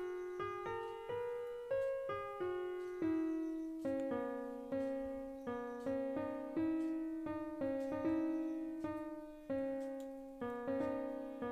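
Background music: a slow melody of single piano-like keyboard notes, each struck and dying away, about two a second.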